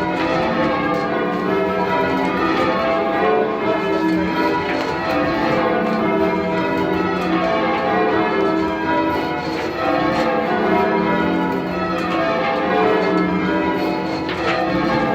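A ring of ten church bells, tenor 18½ cwt in E, rung full circle in call changes: the bells strike one after another in a steady, unbroken sequence.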